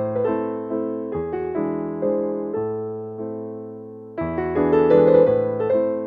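Background piano music: slow chords struck and left to ring and fade, dying away near the middle before a louder chord comes in about four seconds in.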